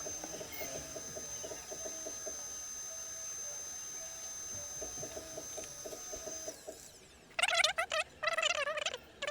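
Soft, repeated bird cooing over a faint steady high whine. Loud warbling animal calls then start about seven seconds in and break off and restart several times.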